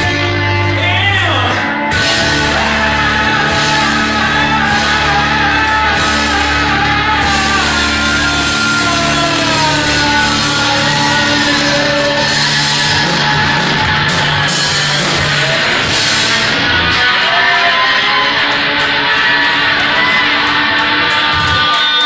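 Live rock band playing loudly, with electric guitars and a singer shouting and singing into a microphone.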